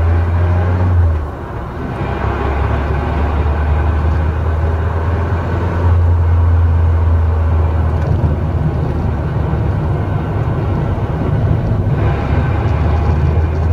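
Mazda Roadster (NC) on the move: steady low drone of the 2.0-litre four-cylinder and drivetrain with road noise, dipping briefly about a second in, and a faint whine rising in pitch near the end. The car's six-speed manual gearbox has developed an abnormal noise that the owner fears is a sign of transmission failure.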